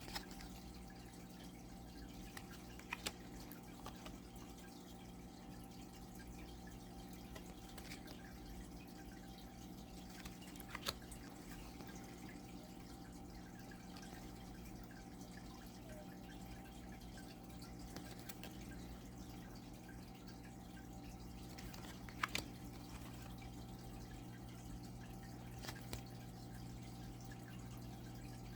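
Faint steady low hum with a few scattered soft clicks: thick oracle cards being flipped and set down one by one.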